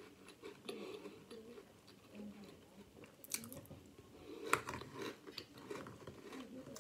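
A person chewing a mouthful of breakfast cereal, with a few sharp clicks among the chewing. The loudest click comes about four and a half seconds in.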